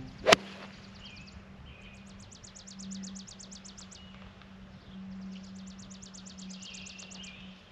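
A golf club striking a ball with a single sharp crack about a third of a second in. Then birds singing, with two rapid trills of quickly repeated notes and scattered chirps, over a steady low hum.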